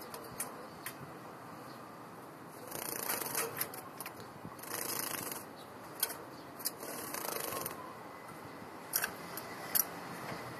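Java sparrow bathing in a clip-on cage bath: three short bursts of splashing and wing-fluttering, about a second each, with a few sharp clicks in between.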